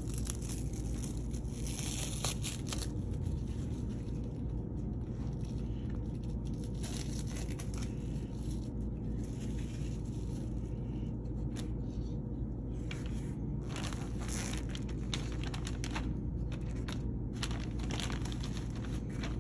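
Clear plastic packaging bags being handled, crinkling and rustling in short irregular spells, over a steady low hum.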